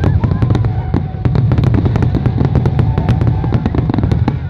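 Fireworks finale: many aerial shells going off in rapid, overlapping bangs with crackle, over a continuous low rumble.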